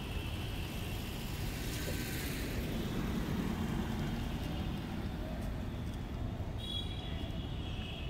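Road traffic rumbling steadily, with a vehicle passing in the middle and a horn sounding for about a second near the end.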